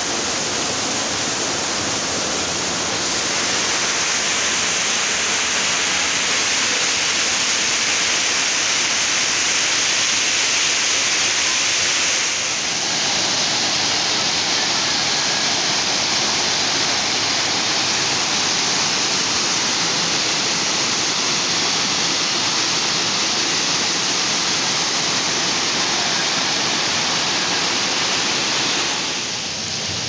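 Waterfall: several cascades pouring over rock into a pool, a steady rush of falling and splashing water, slightly quieter near the end.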